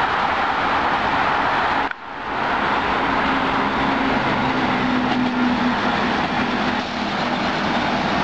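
MBTA Red Line subway train passing close by: steady, loud noise of steel wheels running on rail, with a low, even traction-motor hum through the second half. The sound drops out sharply and briefly about two seconds in.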